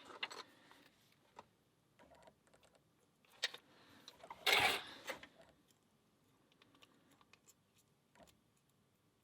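Small, scattered clicks and brief rustling and scraping of lockpicking tools and a lock being handled. The loudest handling noises come about three and a half and about four and a half seconds in.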